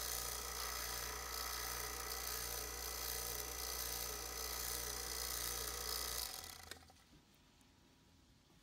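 Electric HVAC vacuum pump running steadily with a low hum and hiss while it evacuates a sealed jar. About six seconds in it is switched off and falls quiet within half a second, with a small click, which isolates the jar so the vacuum can be watched for a leak rate.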